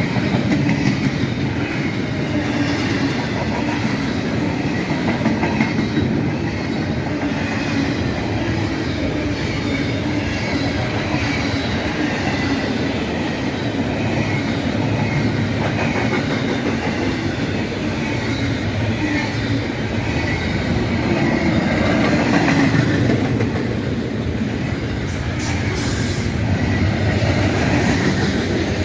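Freight train cars rolling past at a steady speed, wheels clicking over the rail joints, with a faint wavering high squeal from the wheels.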